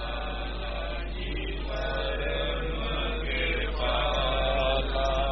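Soft background devotional chanting with music, over a steady low hum.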